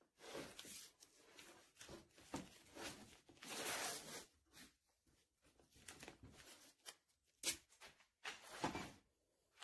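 Faint sound of tape being pulled off a roll in short rips and pressed by hand around a bundle of thin wooden strips, with rustling and rubbing between pulls; the longest pull comes a little before halfway, and a sharp click sounds near the end.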